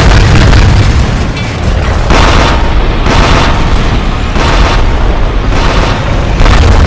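Battle sound effects of explosions: a string of booms, roughly one a second, over a continuous deep rumble.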